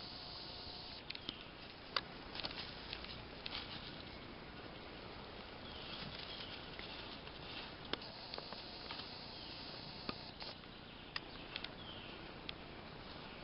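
Spring woodland ambience: a steady hiss with irregular light ticks and pattering. Every few seconds there is a short, high call falling in pitch, typical of a small songbird.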